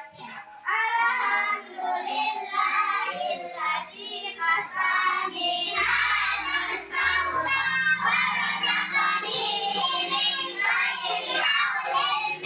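Background music: a song with a singing voice over held bass notes.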